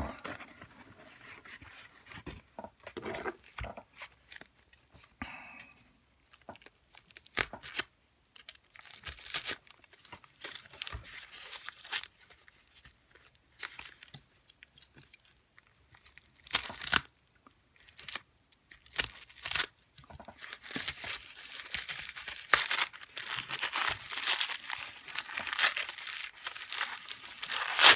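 Packing wrapping being torn and crumpled by hand while a lock is unwrapped: scattered crinkles and rips, getting busier and louder over the last several seconds.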